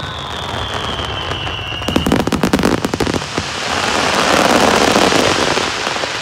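Aerial fireworks: a whistle falling in pitch and a run of sharp bangs from shell bursts, then from about three seconds in a dense crackling like heavy rain from glittering crackle stars, loudest a second or two later.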